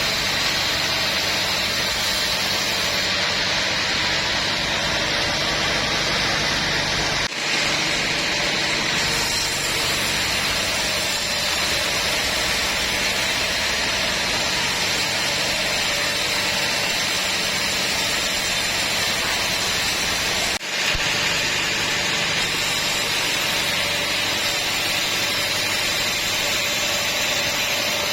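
Sawmill machinery running steadily, a continuous hissing machine noise with a low hum, dropping out briefly twice, about seven and twenty-one seconds in.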